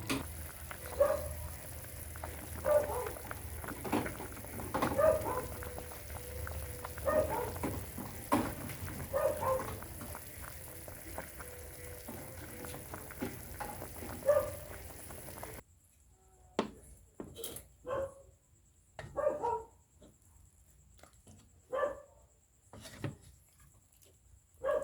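A dog barking repeatedly, a short bark every second or two, over a steady background hum that cuts off about two-thirds of the way through.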